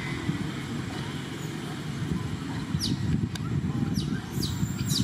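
Outdoor ambience: a steady low rumble, with quick, high, downward-sweeping animal chirps starting about three seconds in and coming more often near the end.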